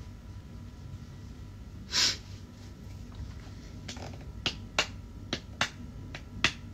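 A short, loud nasal breath about two seconds in, then a run of sharp finger snaps starting about four seconds in, roughly two a second and unevenly spaced.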